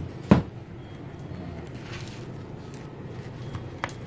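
One sharp knock about a third of a second in and a faint click near the end, over a steady low hum.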